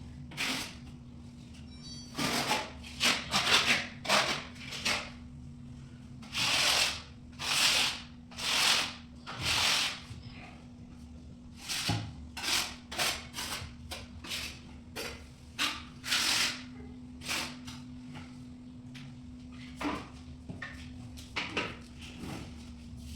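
Repeated scraping or rubbing strokes of a hand tool worked over a hard surface, irregular in pace and each under a second, over a steady low hum.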